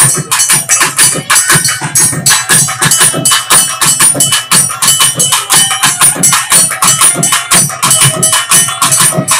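Loud, fast percussion-led music: rapid, evenly driven drum strokes, several a second, with a few thin ringing tones held above them.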